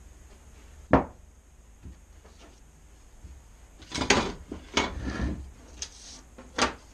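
Objects being set down and handled on a wooden workbench: a pine board, a sheet of paper and a metal ruler. A sharp knock about a second in, a cluster of knocks and rustling around four to five seconds, and another knock near the end.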